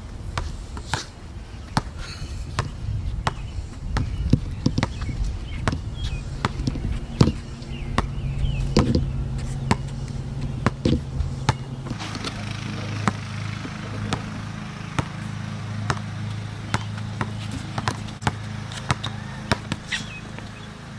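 A basketball being dribbled and bounced on a hard outdoor court: repeated sharp bounces at an irregular pace, over a steady low hum.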